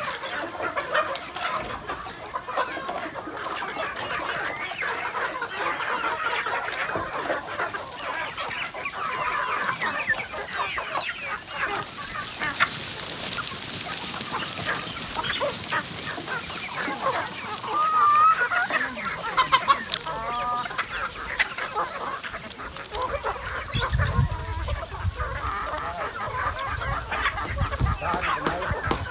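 A large flock of chickens clucking and calling, with a rooster crowing once about two-thirds of the way through.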